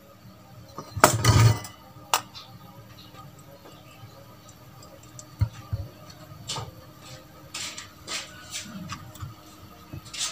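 Scattered clicks and light clatter of a car amplifier's circuit boards, ribbon-cable plug and aluminium chassis being handled and fitted back together, with a louder thud about a second in.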